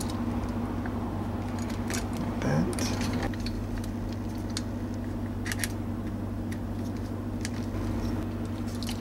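Small metallic clicks and scrapes, scattered and irregular, as a screwdriver tightens the wire terminal screws on a disposal wall toggle switch and the switch is handled, over a steady low hum. A short rising squeak comes about two and a half seconds in.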